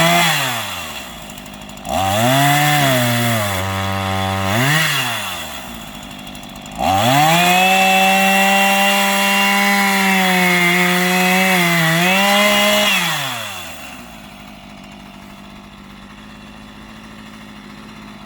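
Small Stihl two-stroke chainsaw revving in short bursts with a brief drop to idle, then held at high revs for about six seconds before winding down near the end.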